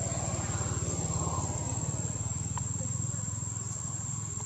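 A steady low engine rumble with a fast, even pulse, under a constant high-pitched whine. Faint voices are heard in the first second or so, and a single click comes about halfway through.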